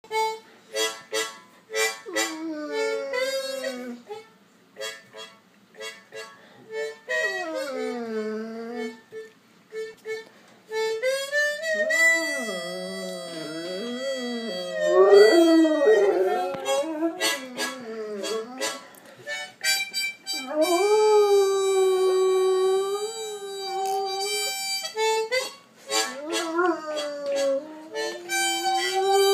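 A harmonica played in short repeated notes and long held chords while a hound dog howls along, its howls sliding up and down in pitch. The dog is set off by the harmonica.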